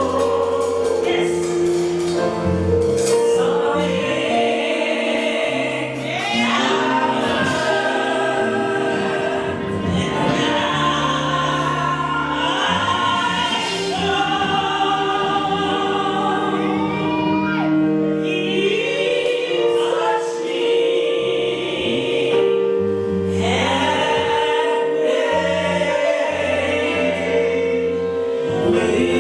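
Gospel singing: long, gliding sung notes over held instrumental chords and a moving bass line.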